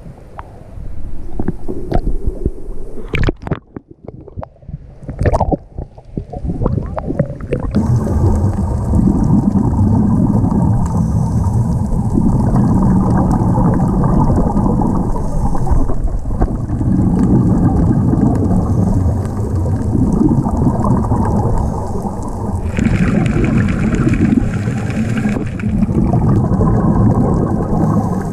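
Seawater splashing and slopping against a waterproof camera at the surface. About eight seconds in, it gives way to the muffled underwater rumble of a scuba dive, with the gurgle of a diver's exhaled regulator bubbles swelling and easing every few seconds.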